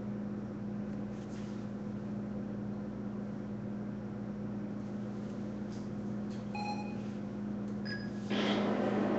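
Steady low electrical hum of room tone, with a short faint beep about two-thirds of the way through and a louder hiss that comes in suddenly near the end.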